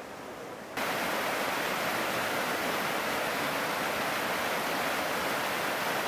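Rushing water of a mountain stream, a steady even rush that jumps suddenly louder just under a second in.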